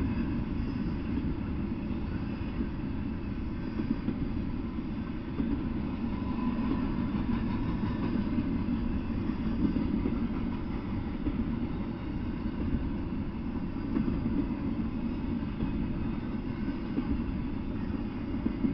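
Double-stack intermodal freight train rolling past, a steady low rumble of the cars' steel wheels on the rails.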